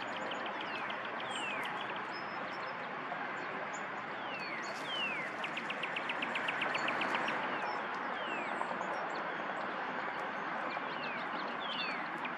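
Small birds calling: rapid ticking trills and repeated down-slurred whistles, over a steady rushing background noise that swells briefly near the middle.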